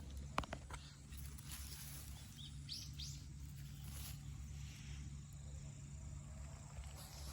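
Faint outdoor ambience with a steady low hum, a single sharp click about half a second in, and a few short bird chirps about three seconds in.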